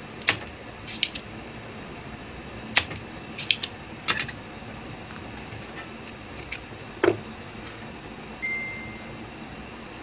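Scattered sharp clicks and taps of small hand tools against a circuit board while solder is freed from an old USB port's pins, over a steady background hum. A brief steady high tone sounds near the end.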